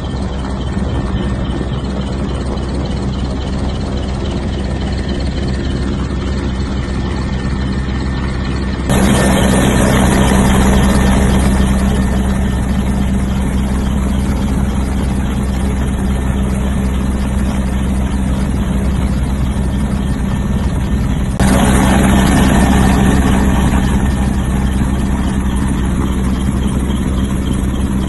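Military helicopter's engines and rotor running steadily in flight, heard from inside the cabin at the open side door: a constant low hum under a wide rushing noise. The loudness steps up suddenly twice, about nine and twenty-one seconds in.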